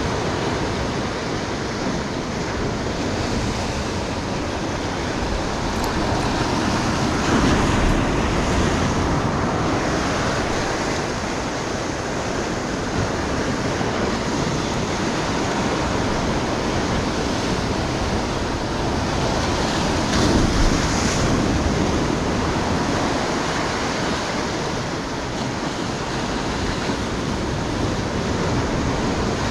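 Ocean surf breaking and washing over rocky shore, a steady rush that swells louder twice, about seven seconds in and again about twenty seconds in.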